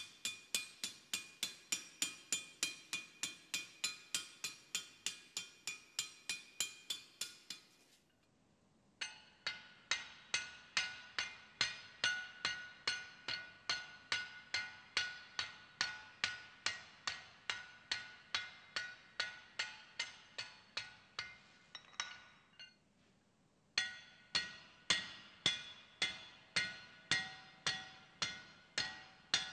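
Forging hammer striking hot steel on an anvil in a steady rhythm of about three to four ringing blows a second, in three runs broken by two short pauses.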